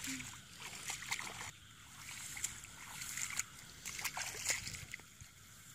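Shallow water splashing and sloshing irregularly as people wade through a flooded field and drag a fine-mesh net through it, with many small crackles and splashes.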